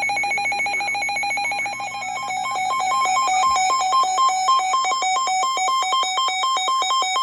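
Weather radio alert sounding for a severe thunderstorm warning: a loud, rapid electronic trill of beeps, on one pitch at first and alternating between two pitches from about two seconds in.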